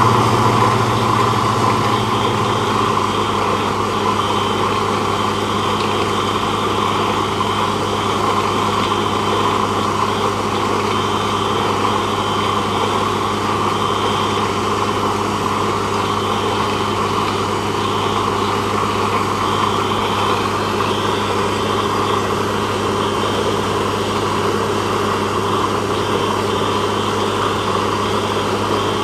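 Truck-mounted borewell drilling rig running steadily as it drills, its engine giving a constant low hum under an even mechanical noise.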